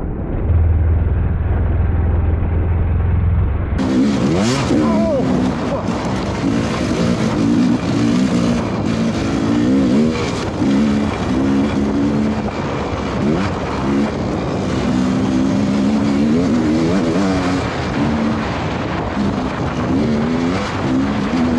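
Dirt bike engine being ridden off-road, its pitch rising and falling over and over as the throttle is worked. The first four seconds are muffled, with a steady low hum, and the sound then cuts abruptly to the open, revving engine.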